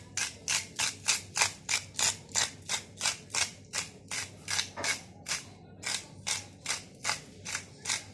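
Hand-twisted pepper mill grinding black pepper: a steady run of short crunching rasps, about three a second, with a couple of brief pauses.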